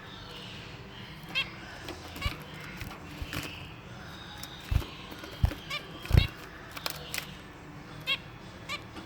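Pet finches giving short, nasal calls, about one a second, with a few low thumps in between.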